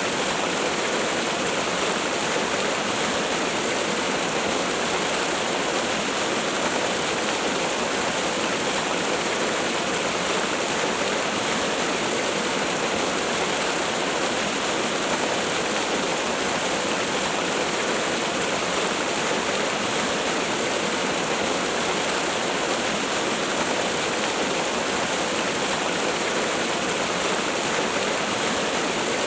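Water falling and rushing in a steady, unbroken hiss.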